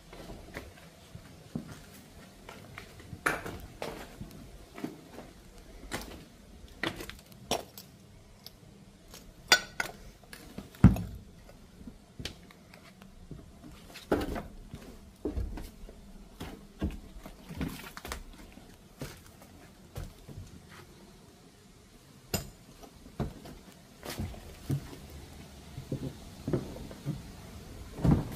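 Footsteps crunching over rubble, broken ceramic tiles and plaster, an irregular crack or clink every second or so, with a few sharper clinks of shards.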